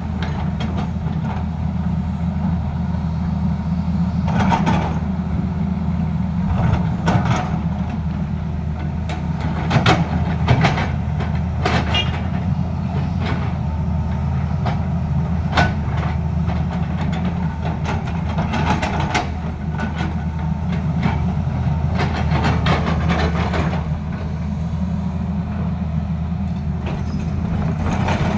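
Tata Hitachi crawler excavator's diesel engine running steadily under load, with irregular metallic clanks and rattles from the machine as it moves and works the ground.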